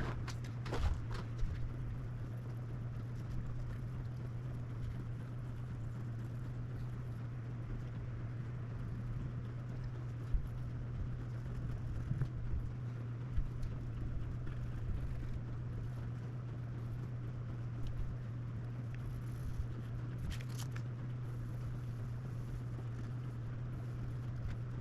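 Steady low hum under a faint noise floor, with scattered light clicks and taps: a few near the start, one a little after ten seconds, and a couple around twenty seconds in.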